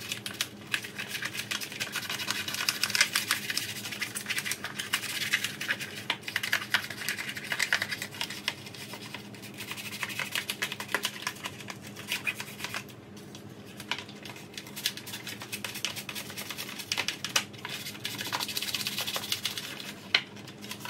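Toothbrush bristles scrubbing a tackle box tray wet with degreaser to loosen rust stains and crud: quick, rapid scratchy strokes in several bouts with short easier stretches between.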